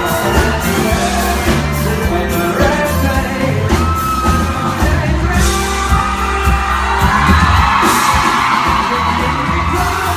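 Live pop music: a male singer with an amplified band, bass and drums going steadily under the vocal.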